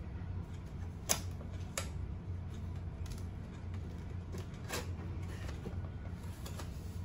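Hands handling a large cardboard appliance box and peeling round sticker seals off it, with a few sharp clicks and taps (about a second in, near two seconds, and near five seconds) over a steady low hum.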